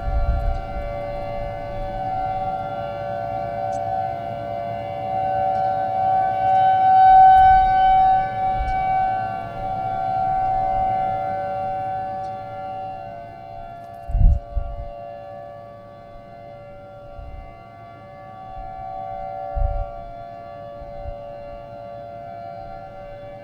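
Outdoor tornado warning siren sounding a steady chord of tones, swelling to its loudest about seven seconds in and then fading. A few low thumps come through in the second half.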